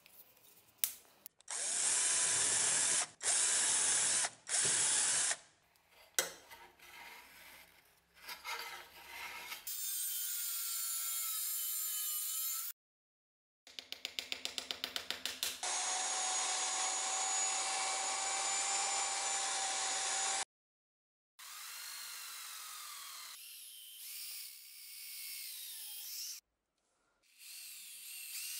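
Workshop tool sounds in separate cuts: three loud rasping bursts near the start, then power tools running steadily. Near the end an electric drill bores holes into an ash wood handle blank, its pitch sagging and recovering as the bit bites.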